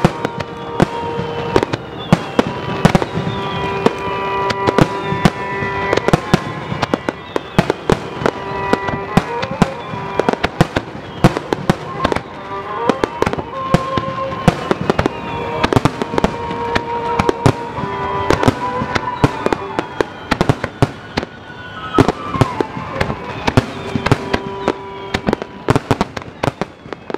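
Fireworks finale barrage: aerial shells and underwater fireworks going off in rapid, overlapping bangs and crackles, several a second, over background music.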